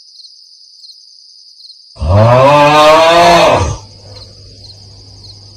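One long cow moo starting about two seconds in and lasting nearly two seconds, its pitch rising slightly and then dropping off at the end.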